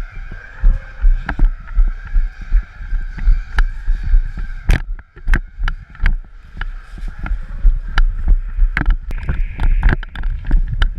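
Footsteps walking at about two steps a second, with sharp clicks and knocks among them.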